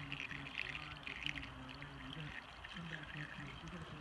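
Beer poured from a can through a plastic funnel into the oil filler of a Honda small engine: a steady pour with fine crackling throughout.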